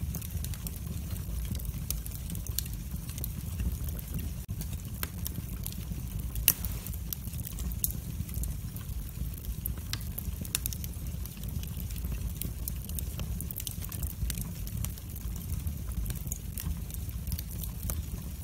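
Wood fire in a fireplace crackling, with irregular sharp pops and snaps, the loudest about six and a half seconds in, over a steady low rumble.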